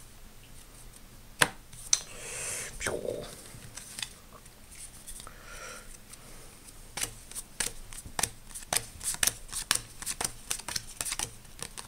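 Yu-Gi-Oh trading cards being handled and flicked through by hand: a scatter of light snaps and clicks that thicken into a rapid series in the last few seconds, with a soft swish about two seconds in.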